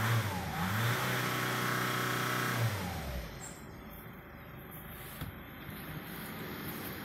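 Mercedes W168 A-Class 1.7 CDI (OM668) four-cylinder turbodiesel being revved: a quick blip, then held at raised revs for about two seconds before dropping back to idle about three seconds in. It then idles steadily and more quietly, with a single click about five seconds in.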